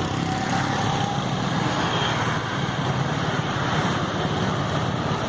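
Steady road traffic noise, a continuous din of passing vehicles.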